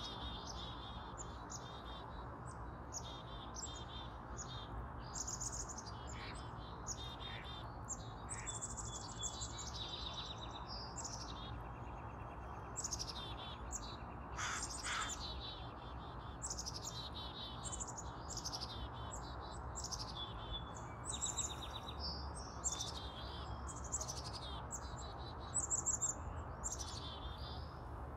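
Wild birds chirping and singing, many short overlapping calls and trills, over a steady low background rumble.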